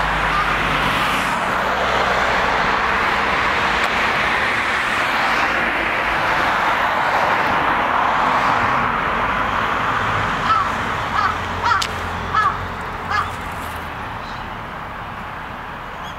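A steady rushing noise that fades away over the last few seconds. Over it, from about two-thirds of the way in, a bird caws in a run of about six short calls.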